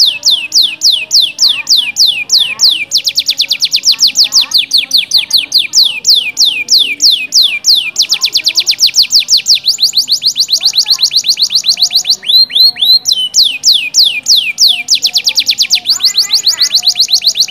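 Domestic canary singing a long, loud trill of rapid, evenly repeated descending whistles, broken twice by a short phrase of different notes, about twelve seconds in and again near the end.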